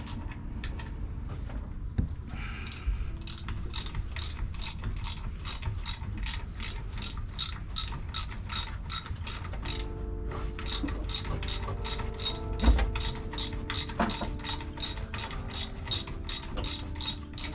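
Hand socket ratchet wrench clicking steadily, about three clicks a second, as bolts are undone to take off the exhaust manifold of a Volvo Penta AD31 marine diesel. The clicking starts about two seconds in and keeps an even pace.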